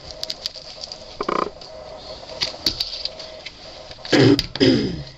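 A woman's brief wordless vocal sounds: a short 'mm' about a second in and a couple of muttered sounds near the end, with light clicks and crinkles from handling a package of ribbon trim in between.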